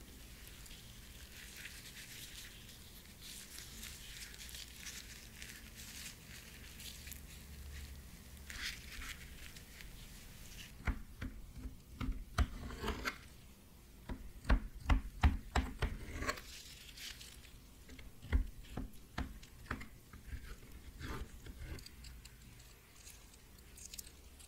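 Gloved hands handling a soft, syrup-poached peach, with wet, crinkly rubbing. From about halfway, a knife cuts into the peach and knocks against the plastic cutting board in a run of short clicks and taps.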